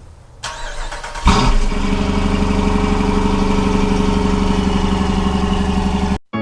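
An engine starting: it catches with a sudden loud burst about a second in and settles into steady, even running, then cuts off abruptly near the end.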